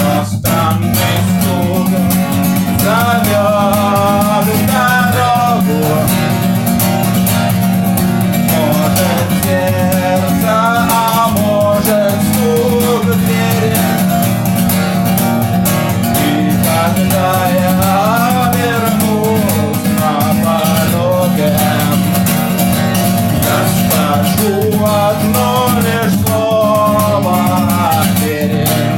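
Instrumental break of a song: guitar accompaniment under a melody line that glides and bends in pitch, in phrases of a few seconds.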